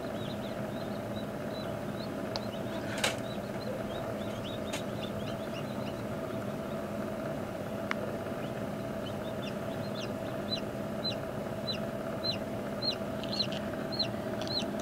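Newly hatched chicken chick peeping inside an egg incubator over the incubator's steady hum. The short, high, falling peeps are scattered at first, then from about halfway come roughly twice a second and grow louder.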